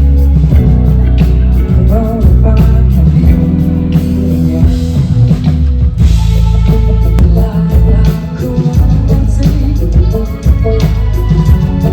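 A live rock band playing loudly: drum kit, bass and electric guitar in a dense, continuous mix, with singing.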